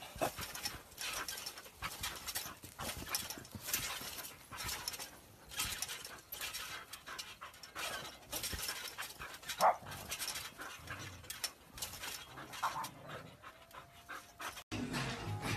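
Dog panting hard in a run of quick breaths while it jumps and plays, with one short whimper about two-thirds of the way through.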